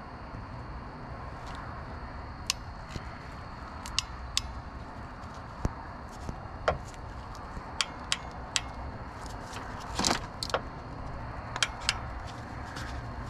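Scattered sharp metallic clicks and ticks from a hand crimping tool being worked onto a terminal on 12-gauge wire, with a short rattle about ten seconds in, over a steady low hum.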